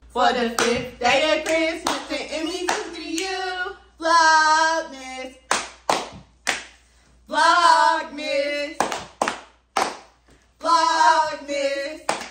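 Women singing short held phrases together, with sharp hand claps between the phrases.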